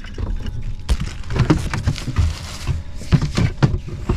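Clatter and rustling of things being handled by hand: a run of knocks and clicks, with a rustling hiss from about a second in and a cluster of close knocks a little after three seconds.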